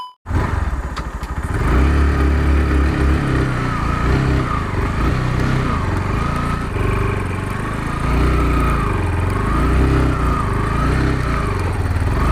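Kawasaki Rouser NS160's single-cylinder engine running as the motorcycle is ridden, its pitch rising and falling with the throttle.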